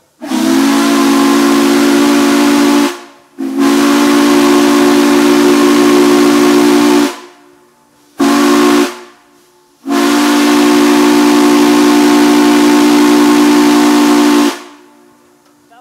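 Multi-chamber steam chime whistle, the restored original whistle of No. 576, blown on steam from Nickel Plate Road No. 765. It sounds a chord of several steady tones with steam hiss in four blasts: long, long, short, long, the grade-crossing signal. All its chambers sound again after repair of the damage that had cut off steam to two of them.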